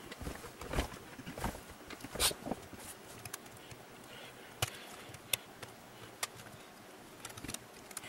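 Light plastic clicks and short scrapes as a knife blade pries at the seam of a Dell Latitude 5490 laptop's plastic bottom cover, working the tabs loose. A cluster comes in the first couple of seconds, then a few single sharp clicks.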